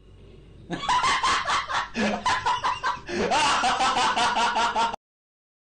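A person snickering in three runs of rapid, choppy laugh pulses that cut off suddenly.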